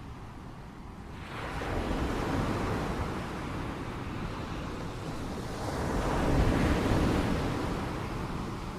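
Surf on a beach with wind on the microphone: a steady rushing noise that swells twice, about a second and a half in and again near two-thirds of the way through.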